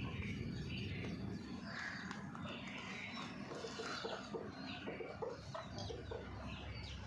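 Hens clucking: many short calls overlapping, with a quick run of low clucks in the middle, over a steady low background rumble.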